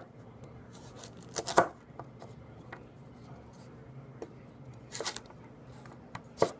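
210 mm Masakage Yuki chef's knife (white #2 steel) slicing through a raw carrot on a wooden cutting board: several separate cuts, each ending in a sharp knock of the blade on the board, the loudest two about a second and a half in.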